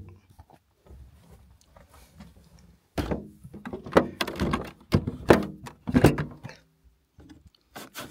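Maxxair SkyMaxx plastic roof vent being worked by hand. From about three seconds in there are a few thunks, rubbing and creaking as the lid is moved on its lifting arm. A quick run of clicks follows near the end as the fly screen is slid across.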